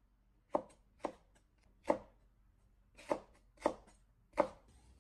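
Chinese cleaver chopping a green pepper into thick strips on a bamboo cutting board: about six separate knife strikes, unevenly spaced, roughly half a second to a second apart.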